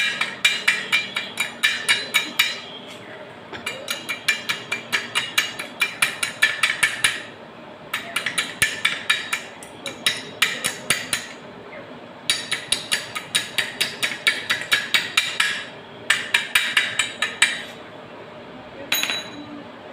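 A hammer tapping rapidly on steel with a ringing metallic clank, about five or six blows a second. The blows come in five bursts of two to four seconds with short pauses between them, and a single ringing clink follows near the end.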